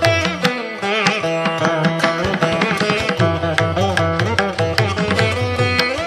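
Indian classical instrumental music in a Carnatic style: a plucked string instrument plays a melody with sliding, bending notes over steady hand-drum strokes.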